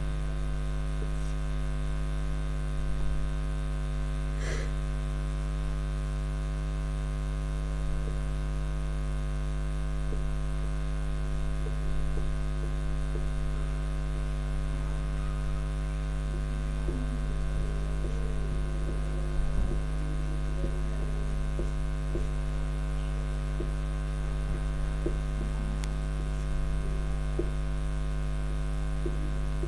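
Steady electrical mains hum, a low drone with many steady overtones, with a few faint short taps and scrapes over it.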